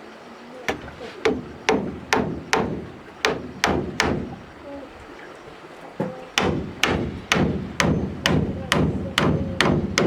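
Hammer blows, steady and sharp at a little over two a second: a run of about eight, a pause of about two seconds, then about nine more.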